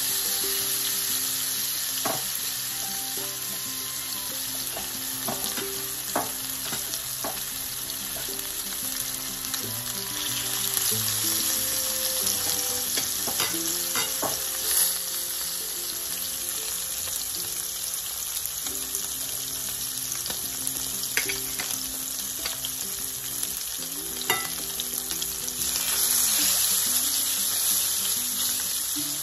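Seasoned red snapper pieces frying in hot oil in a skillet: a steady sizzle that grows louder twice as more pieces are laid in. A few light clicks of tongs against the pan.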